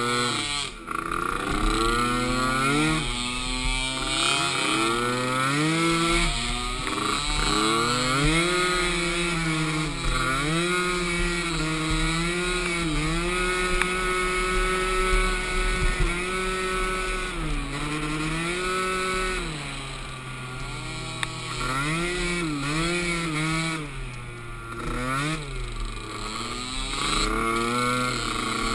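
Small youth ATV engine racing, its pitch rising and falling with throttle and shifts, held at steady revs for a few seconds in the middle, then dipping and picking up again several times near the end.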